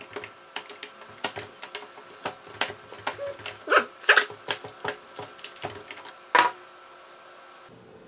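Irregular clicks and taps of a screwdriver and fingers working against the plastic wheel-motor module of an iRobot Roomba, with a few louder knocks around four seconds in and again at about six and a half seconds.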